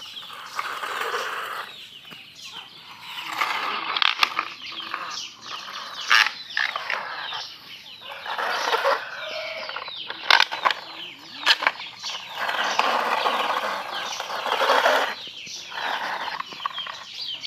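A plastic toy crane truck being handled and pushed on sandy dirt: plastic rustling, scraping and clicking in spells of a second or two, with a few sharper clicks.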